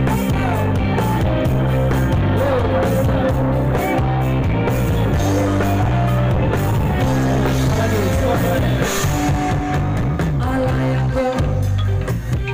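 Live band playing loud amplified rock-style music on stage, with guitar, bass and drum kit and a singer's voice over it.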